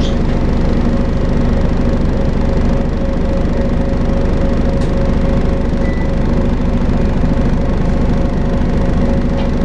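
Volvo B5LH hybrid bus running with its steady vacuum-cleaner-like 'hoovering' drone, a constant hum with a steady mid-pitched whine over a low rumble.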